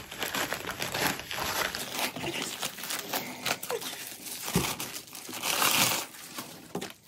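Tissue paper crinkling and rustling as the wrapping is pulled off and out of a new handbag, with a soft bump about halfway and a longer, louder rustle near the end as a long sheet is drawn out.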